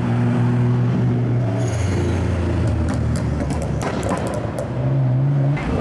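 Car engines running as cars drive past in street traffic: a steady low engine note for the first couple of seconds and another about five seconds in. Between them comes a quick run of sharp clicks.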